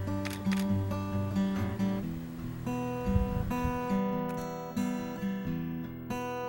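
Acoustic guitar music: picked notes that start sharply and fade, one after another, over lower bass notes, with the melody moving higher about two and a half seconds in.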